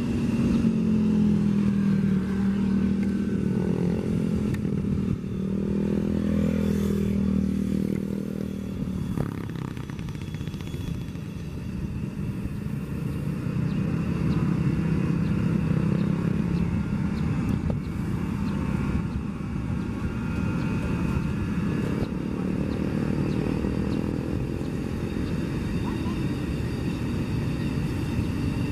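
KCIC400AF high-speed comprehensive inspection train, an electric train, rolling slowly past: a steady low hum with wavering tones that swell and fade.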